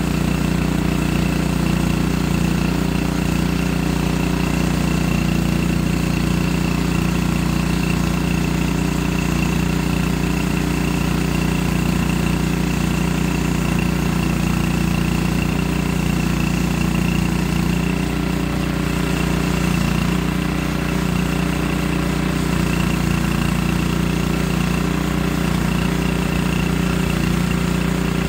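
Small gasoline engine of a portable bandsaw sawmill running at a steady speed, with a slight dip in level about two-thirds of the way through.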